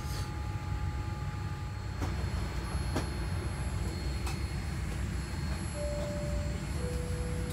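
Steady low rumble of a Boeing 787 airliner cabin parked at the gate, with a few faint clicks. Near the end, two long held notes sound, a higher one then a lower one.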